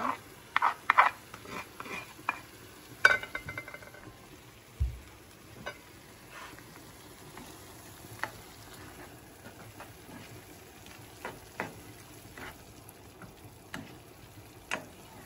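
Tomato and onion sofrito frying in a pan while a plastic spoon stirs it. In the first few seconds the spoon knocks and scrapes sharply several times against the stone molcajete and the pan as the ground spices go in. After that comes a faint steady sizzle with occasional light ticks of the spoon.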